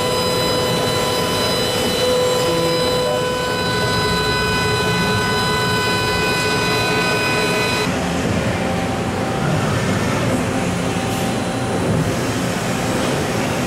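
Mazak HCR-5000 five-axis machining center milling a metal part with a 10 mm ball end mill at 15,000 rpm: a steady whine made of several pitches at once, over a hiss. About eight seconds in, the whine gives way to a lower mechanical rumble and hum as the machine's pallet changer loads the next workpiece.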